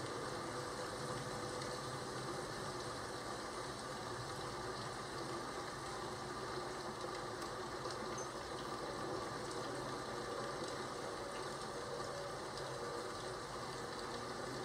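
Steady rain ambience: an even, unbroken hiss of falling rain, with no thunderclap.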